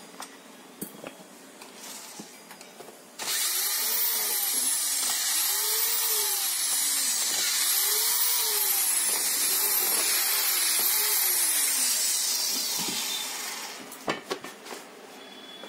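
Handheld power drill/driver spinning out Allen bolts, its motor whine speeding up and slowing down about six times as the trigger is worked. It starts about three seconds in and fades out near the end, followed by a few light clicks.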